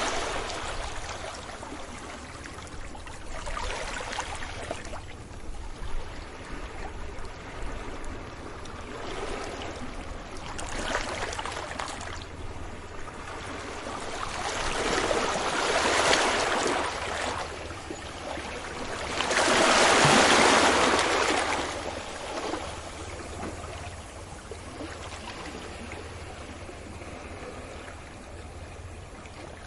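Sea waves breaking gently on a beach: a continuous wash with several surges, the strongest about two-thirds of the way through.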